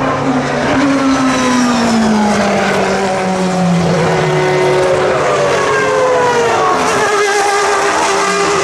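Single-seater racing cars passing at speed on track: several engine notes at once, falling steadily in pitch as they go by, with a note starting to rise again near the end.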